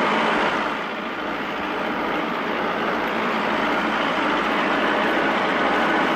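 Farm tractor engine running steadily under way, with a slight drop in level about a second in.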